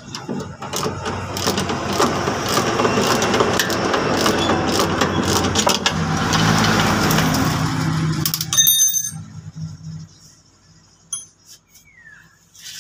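Hand ratchet wrench clicking and clanking on the propeller shaft's flange bolts, metal on metal, for most of the time, then a short metallic ring about eight and a half seconds in, followed by quieter handling of the shaft.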